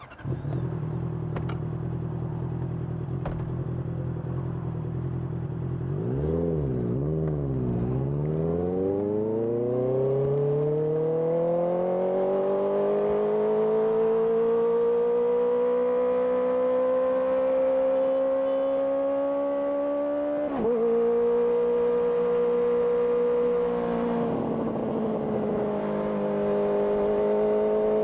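Honda CBR650R inline-four through an IXIL IXRACE aftermarket exhaust, catching suddenly and idling steadily, then blipped twice. It then pulls away in one long smooth rise in pitch, with two short dips like gear changes in the last third.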